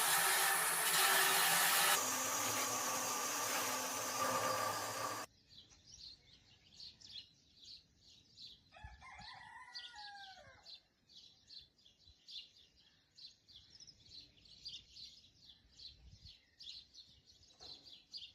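A power tool runs with a loud, dense rasping noise and cuts off abruptly about five seconds in. Then small birds chirp steadily, and a rooster crows once for about two seconds near the middle.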